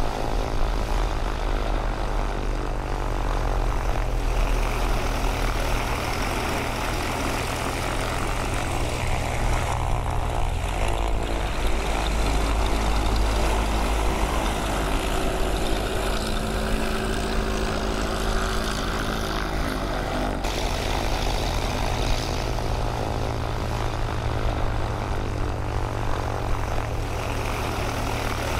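Mooney's single piston engine and propeller running at low taxi power, heard from inside the cockpit as a steady drone. The engine note shifts for a while in the middle.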